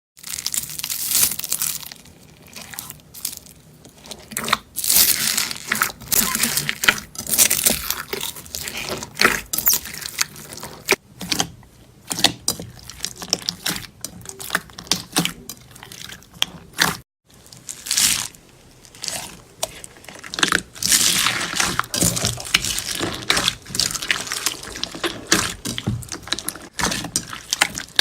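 Slime being squished, pressed and stretched by hand, with dense, irregular crackles, clicks and pops as air pockets burst. A short break comes about 17 seconds in.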